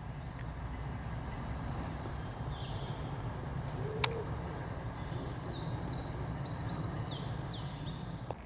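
European robin singing: a run of short, high, thin phrases over steady low outdoor background noise. A single sharp click comes about four seconds in.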